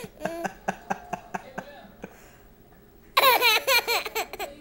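Baby laughing: short high-pitched giggles fade over the first couple of seconds, then, after a brief lull, a loud fit of rapid, high-pitched laughter starts about three seconds in.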